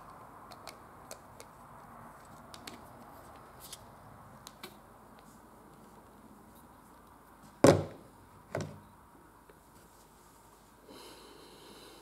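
Handling noise from a glass hot-sauce bottle: scattered small clicks, then two loud knocks about a second apart a little past the middle.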